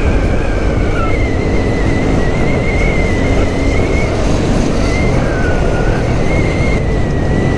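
A Vespa Sprint 150 scooter riding along. Its single-cylinder engine runs steadily under a dense rumble of road and wind noise, with a thin high whine that wavers slightly in pitch.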